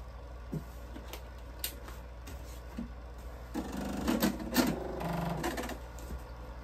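Electric sewing machine stitching in two short runs, about three and a half and five seconds in, after a few light clicks.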